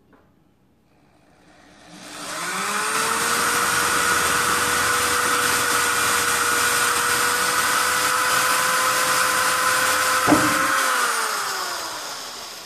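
Electric hand drill spinning up with a rising whine, then running steadily for about eight seconds while drilling a pilot hole into a metal trommel shaft. A single knock about ten seconds in, then the motor winds down with a falling pitch.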